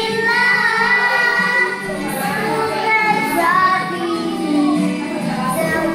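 A young girl singing into a handheld microphone over a karaoke backing track, holding long notes.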